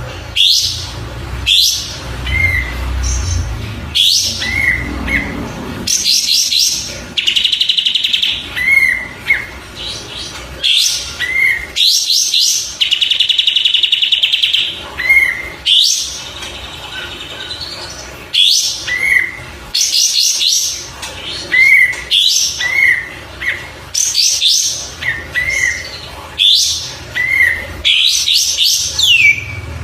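Kapas tembak songbird singing: repeated short chirps and quick rising whistled notes. Twice there is a longer rapid buzzy trill, once about seven seconds in and once around thirteen seconds. A low rumble sits under the first five seconds.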